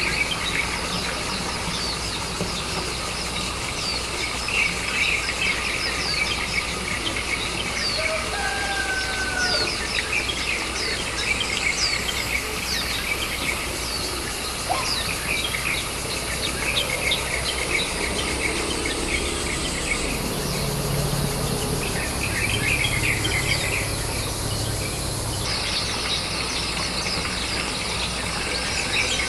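Many short, high chirps repeating close together, the begging calls of Japanese white-eye nestlings with gapes open toward the parent at the nest.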